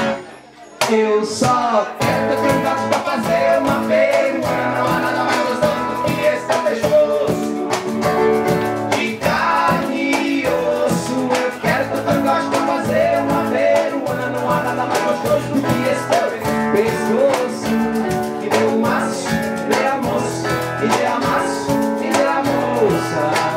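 Live forró band playing: acoustic guitar strumming over hand percussion that keeps a steady beat. The music drops out briefly just after the start, then comes back in.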